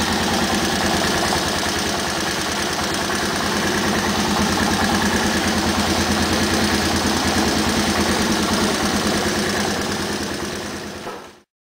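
Yamaha Moto 4 200 ATV's single-cylinder four-stroke engine running steadily with a fast, even pulse. The sound cuts off abruptly near the end.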